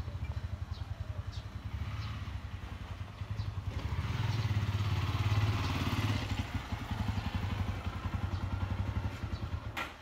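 A small engine running with a fast, even throb, growing louder around the middle and easing off toward the end. A sharp click comes just before the end.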